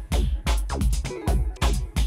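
Electronic music with a quick drum-machine beat: deep bass hits, each dropping in pitch, under pitched synth sounds.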